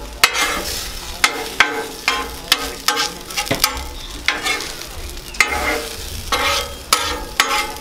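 Shredded hash browns sizzling on a Blackstone flat-top griddle while a metal spatula scrapes and taps against the steel plate, making many sharp, irregular clicks over the frying.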